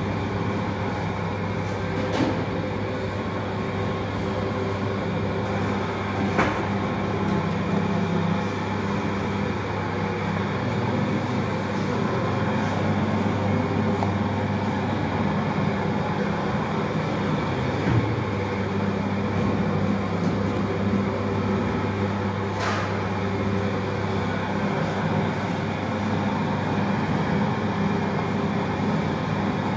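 Steady hum and drone of commercial bakery machinery, with three short sharp knocks spread through it.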